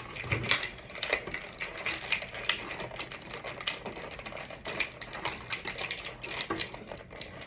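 Clear plastic packaging crinkling and crackling in quick, irregular clicks as a toy figure is worked out of it.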